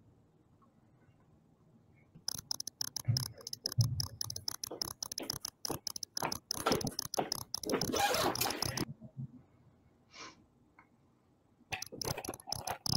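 Rapid, crackly ticking on a faulty microphone feed, almost cricket-like, in two stretches: from about two seconds in to about nine, and again from near the end. It is the constant ticking noise fault on the presenter's mic line, not yet fixed.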